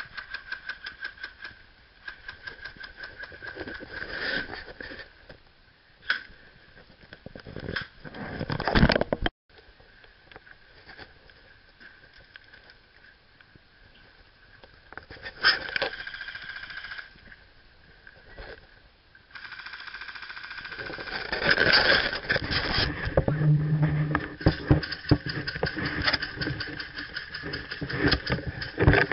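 Airsoft guns firing in bursts of rapid shots, with pauses between the bursts; the firing is densest in the last third.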